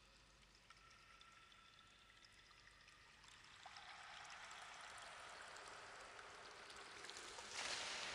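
Faint water-like pouring and trickling in an ambient track, with faint held tones at first; the hiss swells gradually from about three seconds in and grows louder near the end.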